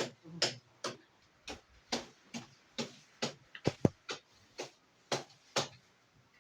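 Sharp taps of hands on a patient's body during a hilot/chiropractic treatment, about two a second. A quick cluster of three near the middle holds the loudest. The taps stop about a second before the end.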